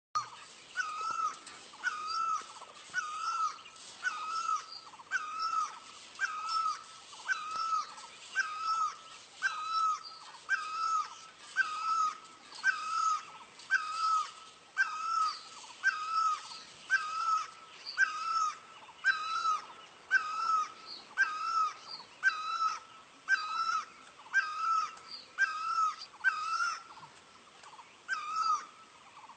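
Great barbet calling: a short rising-and-falling note repeated steadily about once a second.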